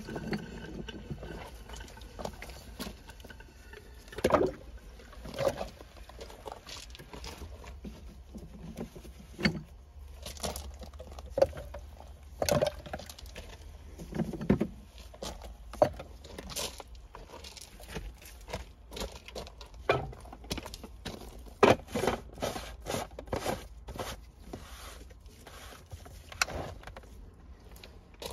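Irregular knocks and clatters of chlorine tablets being dropped into the open canister of a Hayward chlorine feeder, then its lid being put back on, over a faint steady low hum.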